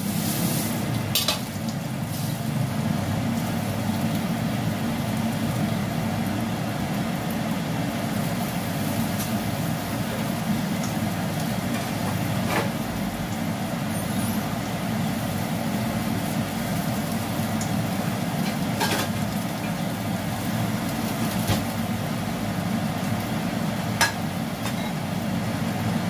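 Steady low rumble of kitchen machinery with a faint sizzle of frying, and a few light clinks of a metal spatula on the cookware.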